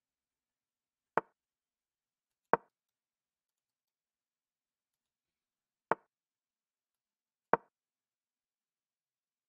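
Chess.com's move sound effect, a short wooden clack of a piece set on the board, heard four times in two pairs as moves are played in a blitz game.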